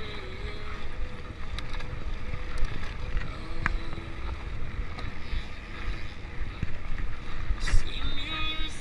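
Wind buffeting the microphone of a camera riding on a mountain bike along a singletrack trail, with a steady low rumble from the ride and a few sharp knocks.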